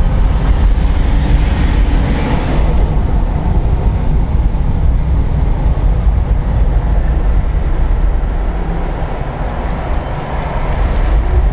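Steady rumble of wind and tyre noise inside the cabin of a Bradley GT2 kit car converted to 96-volt electric drive, accelerating at full throttle, with no engine note.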